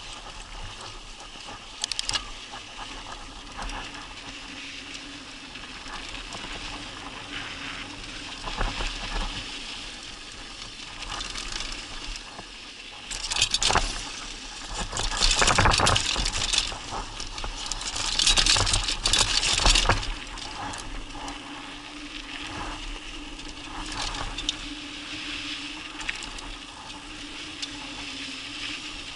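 Mountain bike rolling down a dry dirt and gravel trail: tyre noise on the dirt with the bike rattling and clicking over bumps. It gets much louder and rougher in the middle, over a rougher stretch.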